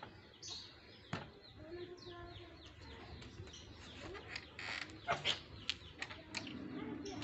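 Small birds chirping, with a few sharp clicks and knocks, loudest about five seconds in.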